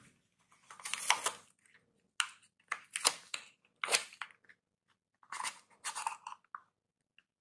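A soap bar's paper wrapper being torn open and pulled off by hand: several short crinkling, tearing rustles with pauses between them.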